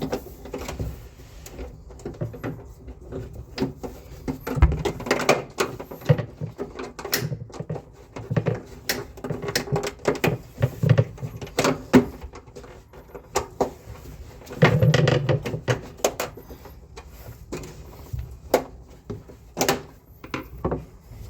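Irregular clicks, knocks and clatter of hard parts being handled, with denser bursts of knocking twice. This is typical of a split air conditioner's indoor unit being closed up after a fan motor replacement.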